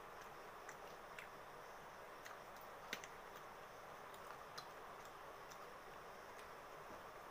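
Faint, irregular clicks and taps of eating by hand from a steel plate over a steady hiss, the sharpest click a little under three seconds in.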